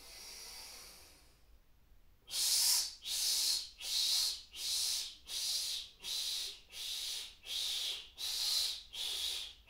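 A man's yogic cleansing breath: a soft inhalation, then from about two seconds in a steady run of about ten forceful exhaled puffs, roughly one and a half a second, each breath pushed out against resistance.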